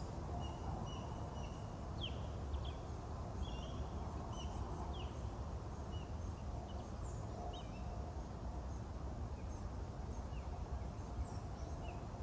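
Birds chirping, with many short calls and quick pitch sweeps scattered throughout, over a low steady outdoor rumble.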